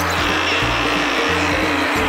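Background music with a bass line stepping through held notes.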